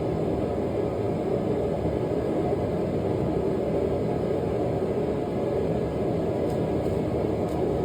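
Small forge running: a steady, even rushing noise while the leaf-spring steel heats up.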